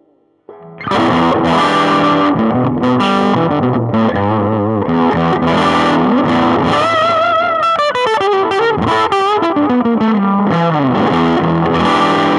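Overdriven electric guitar played through a Marshall Origin 5 all-tube 5-watt combo on its higher gain setting, with delay. A lead phrase starts about half a second in, with held notes shaken by vibrato past the middle and a descending run toward the end.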